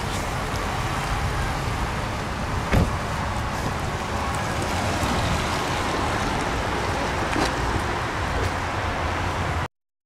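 Steady outdoor rumble and hiss of road traffic, with a sharp knock about three seconds in and a fainter tick about seven seconds in; it stops abruptly near the end.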